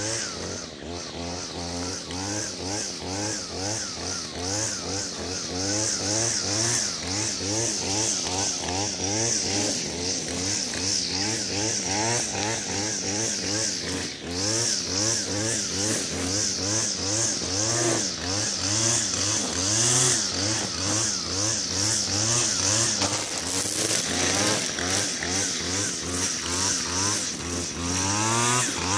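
Gas string trimmer (weed eater) running while cutting grass, its engine pitch rising and falling again and again as the throttle is worked, with the hiss of the spinning line on top. It revs up sharply near the end.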